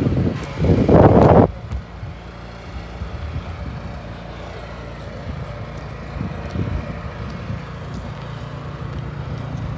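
Wind buffeting the microphone for about the first second and a half, then the steady low hum of an engine running.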